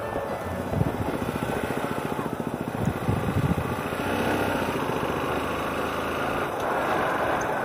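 Motorcycle engine running under way on a ride, its pitch rising and falling a little around the middle.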